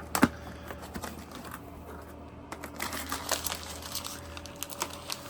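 A cardboard fireworks case being handled and opened: crinkling packaging with scattered taps and knocks, one sharp knock near the start.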